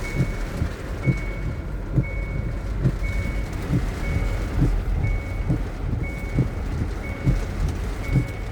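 A vehicle's electronic warning beeper, such as a reversing alarm, sounding a high beep about once a second over a steady low vehicle rumble with regular low knocks.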